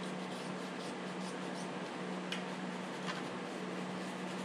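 Quiet workshop room tone with a steady low hum, and two faint small clicks about two and three seconds in as gloved hands work over a chainsaw body.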